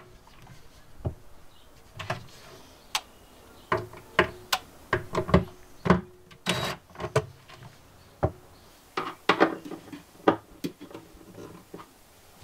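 Cordless drill/driver running in short bursts to drive screws for concealed cup hinges on a plywood cabinet, with a string of sharp clicks and knocks from the hinge hardware and the wood.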